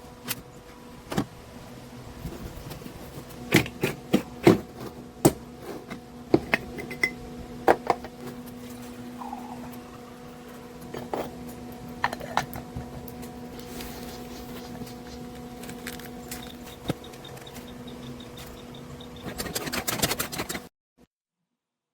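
Moka pot parts clinking and knocking as they are handled, a scattering of sharp knocks over a steady low hum, thicker just before the sound cuts off suddenly near the end.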